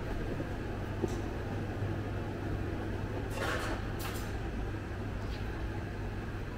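Indoor room tone: a steady low hum, with a few brief faint clicks and rustles, the clearest around three and four seconds in.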